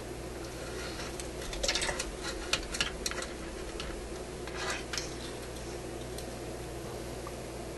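A few small metallic clicks and clinks from tools and wire leads being handled inside a metal radio chassis, grouped about two to three seconds in and again near five seconds, over a steady background hum.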